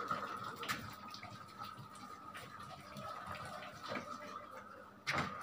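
Water poured from a plastic bottle, splashing faintly onto a brick floor, with a few soft knocks.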